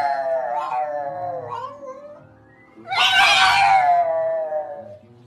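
Pug howling: two long calls, each sliding down in pitch, the second one louder and starting about three seconds in.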